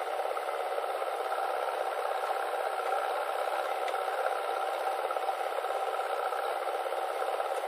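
Steady running of the diesel engines of a JCB 3DX backhoe loader and an Eicher tractor at work, heard thin with no low rumble and no distinct events.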